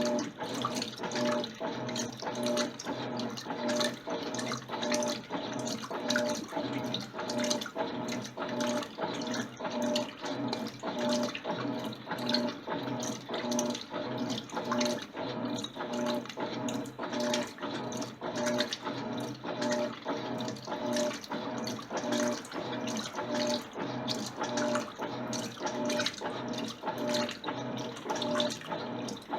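Electrolux LTC10 washing machine working a load of jeans in water: a steady motor hum under rhythmic sloshing, about two surges a second.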